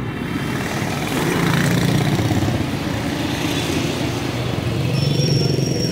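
Street traffic with motorcycle engines passing close by, swelling twice.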